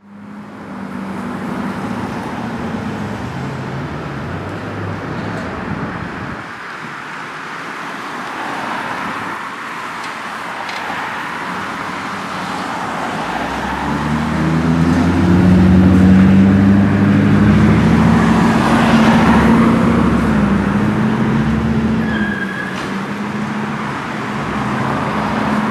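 Street traffic: cars and a pickup truck driving past, with road noise and engine hum. The loudest pass comes in the second half, with a deep, steady engine note.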